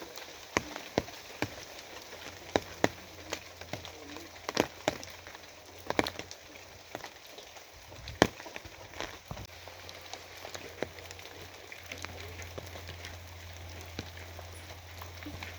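Steady rain with many loud, irregular single drops striking a hard surface, the loudest one about eight seconds in. A low steady hum underneath grows louder near the end.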